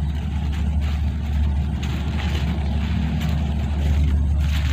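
A steady low rumble with a light rustle of rice leaves brushing against the phone.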